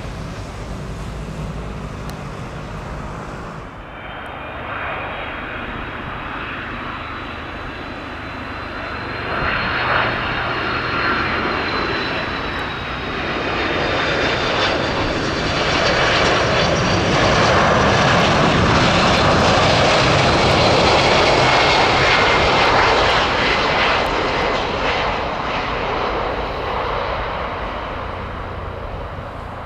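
Wide-body jet airliner passing overhead, its engines' rush and high whining tones drifting slightly downward. The sound grows from about four seconds in, is loudest a little past the middle, then fades away.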